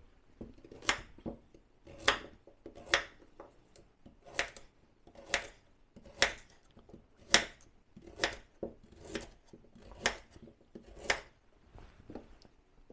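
Kitchen knife slicing carrots into rounds on a wooden chopping board: a sharp knock of the blade through the carrot onto the board about once a second, eleven or so cuts.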